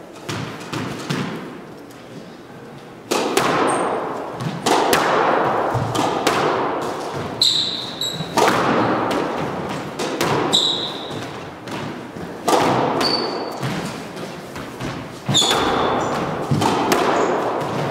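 Squash rally: the ball is struck by rackets and hits the court walls, a sharp knock every second or two, each with an echo in the enclosed court. Short high squeaks of court shoes on the wooden floor come between the hits.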